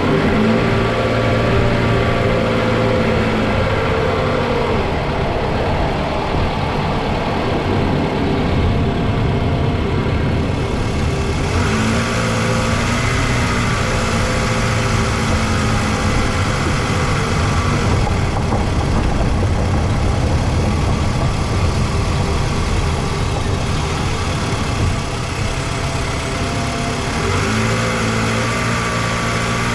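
Toyota Vanguard 240S's 2.4-litre four-cylinder 2AZ-FE petrol engine running steadily. Its low hum swells and fades every several seconds, and it sounds brighter from about a third of the way in.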